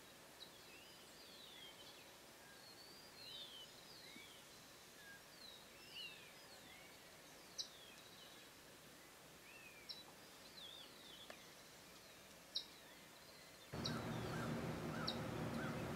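Faint, high, bird-like chirps, many short descending notes scattered throughout, with a few sharp ticks. About two seconds before the end a steady low hum and background noise cut in abruptly.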